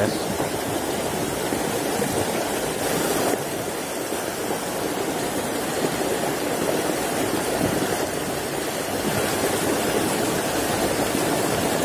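Shallow rocky stream rushing steadily over stones and a small riffle.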